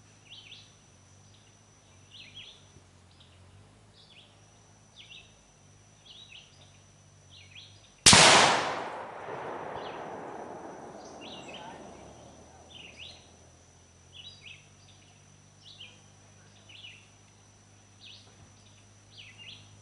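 A single rifle shot about eight seconds in: one sharp crack, then an echo that rolls through the woods and dies away over about four seconds. Birds chirp about once a second before and after it.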